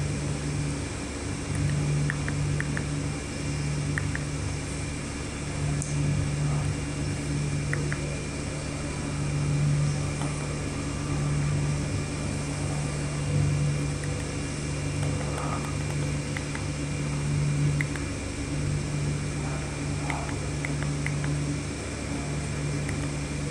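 Steady hum of a projector's cooling fan, with faint scattered clicks of remote-control buttons being pressed.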